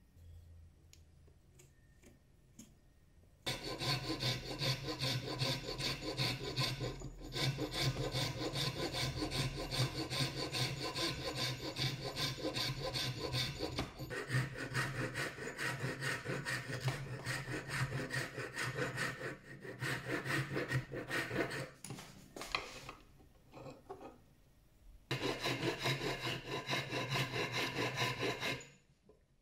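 Hand file rasping back and forth over a hardwood knife-handle block in quick, continuous strokes, starting a few seconds in. Near the end the filing breaks into a few short separate strokes, then runs steadily again before stopping.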